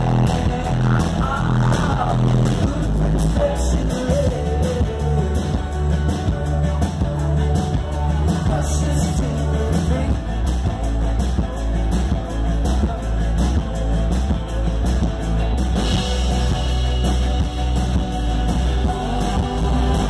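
Live rock band playing: electric guitar, keyboards and drums over a strong bass, with sung vocals.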